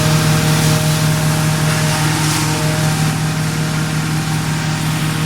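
Garden branch wood chipper's engine running steadily at a constant speed, with a strong low hum and a fast, even firing pulse.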